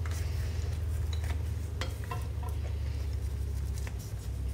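A chapati torn into pieces by hand, with a few light clicks, over a steady low hum.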